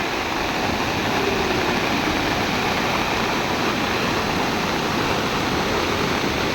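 Rainwater runoff rushing in a steady flow across a road during heavy rain.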